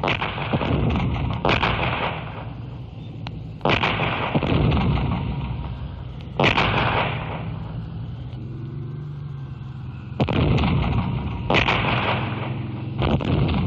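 Heavy cannon-style gunfire blasts, about seven at irregular intervals. Each is a sudden crack that trails off in a long rumbling decay over a continuous low rumble, like a battlefield sound effect.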